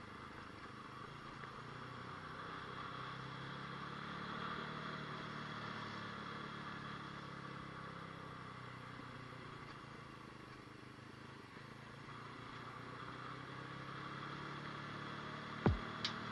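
Aprilia RX125 motorcycle engine running steadily under way, its note rising a little about four seconds in. Near the end, music cuts in with a falling electronic sweep and sharp beats.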